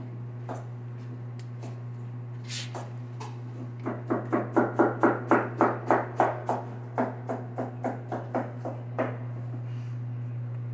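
A clear plastic clamshell fruit container being handled and flexed, crackling in a rhythmic run of about three pulses a second for some five seconds, over a steady low hum.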